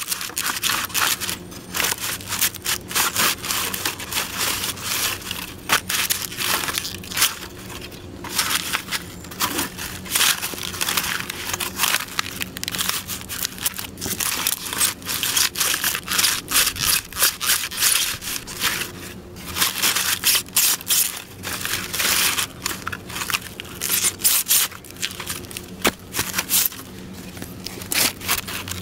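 Black leather dress boots stomping on and grinding an egg carton against pavement: a dense, continuous run of crackling crunches and scrapes as the carton is crushed and torn apart.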